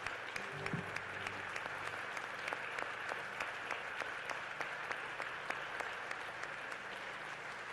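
Congregation applauding: many hands clapping in a steady, dense patter that eases off slightly near the end.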